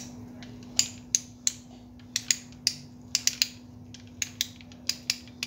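Sharp, irregular metallic clicks, about twenty in five seconds, from a spinning reel's exposed gears and crank shaft being turned and fitted together by hand during reassembly.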